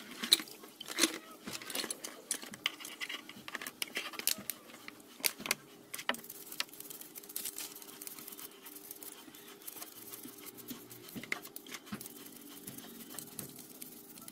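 Metal CVT parts clinking and clattering against each other in a basin of cleaning fluid as they are handled. Later comes a softer scratchy sound of a toothbrush scrubbing the finned variator face, with occasional clicks.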